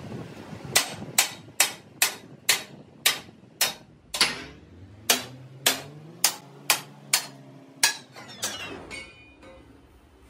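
Hammer blows on a steel truck wheel rim mounted on a lathe, about two a second with a short pause in the middle, each blow ringing briefly. The hammering stops near the end and a faint metallic ticking dies away.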